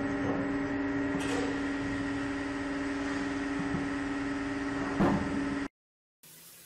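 Steady machinery hum with a strong low tone, in a large factory hall, with a couple of brief knocks. It cuts off abruptly near the end, leaving only a faint hiss.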